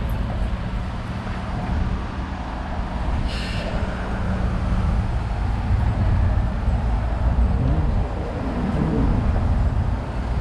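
City street traffic: vehicle engines running in a steady low rumble, with a short sharp hiss about three seconds in.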